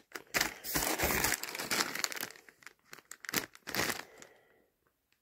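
Clear plastic bag packed with plastic miniatures crinkling and rustling as it is handled, the crackling stopping about four and a half seconds in.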